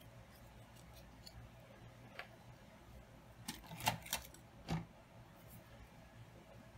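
A few light clicks and taps as a small contact-glue container and an application stick are handled and opened, most of them clustered about halfway through, over a faint room hum.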